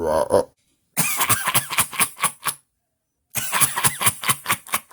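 A person's voice performing a monster character's unnatural non-speech sounds: a short vocal burst, then two runs of rapid stuttering pulses, each over a second long, with a pause between.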